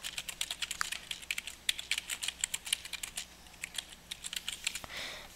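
Typing on a computer keyboard: a quick, irregular run of keystrokes that stops near the end.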